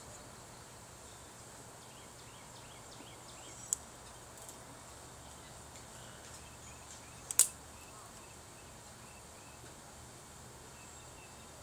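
Blue-and-gold macaw's beak working on a chicken bone: a few faint small clicks, then two sharp cracks, the louder one about seven seconds in, over a steady low hum.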